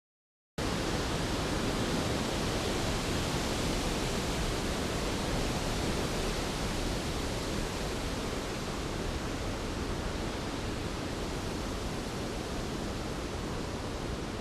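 Storm sound effect of heavy rain: a steady, even rush with no thunder claps, starting abruptly about half a second in.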